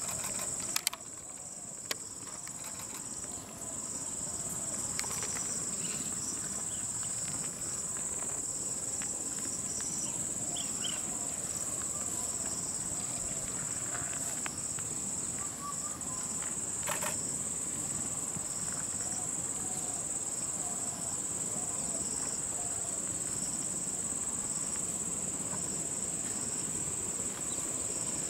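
Steady high-pitched drone of insects in the forest, with a few short clicks about a second in and again about 17 seconds in.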